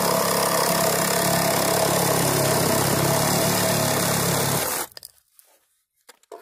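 Reciprocating saw with a Diablo demolition blade cutting through 3-inch ABS sewer pipe, running at a steady buzz. It stops abruptly about three-quarters of the way in, leaving only a few faint clicks.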